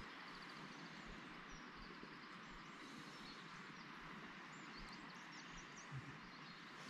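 Quiet outdoor ambience: a faint steady hiss with scattered short, high chirps of small birds, and a soft knock about six seconds in.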